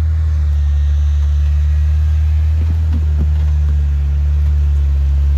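Off-road 4WD vehicle's engine running with a steady low drone, heard close up.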